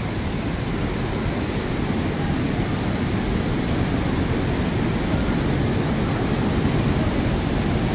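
River in monsoon flood rushing fast below, a steady loud noise of churning water; its flow is swollen by water released from an upstream dam.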